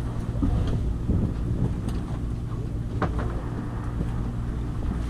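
Fishing boat's engine humming steadily, with wind on the microphone. A short knock about three seconds in.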